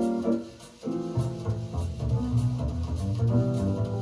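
Instrumental break of a jazz song with bass, played through 1954 Soviet 8GD1 full-range loudspeakers with a Siemens tweeter and picked up by a phone in the room. The music drops out briefly about half a second in, then resumes.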